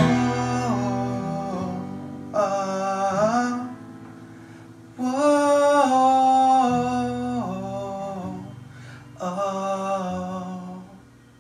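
A male voice singing four drawn-out melodic phrases over a strummed acoustic guitar, the song's closing bars, with the sound dying away near the end.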